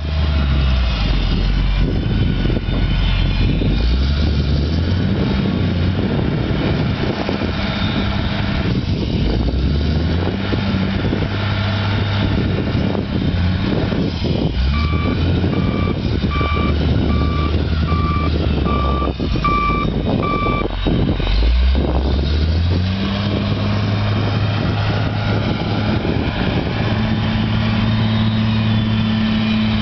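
John Deere 844J wheel loader's diesel engine revving up and down as it digs into a clay pile. About halfway through, its backup alarm beeps about ten times over some six seconds. Near the end the engine holds a steadier, higher note as the loader drives off with a full bucket.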